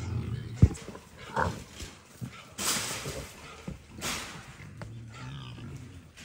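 Trapped feral hogs grunting, with a sharp knock about half a second in and two short loud whooshes about a second and a half apart near the middle.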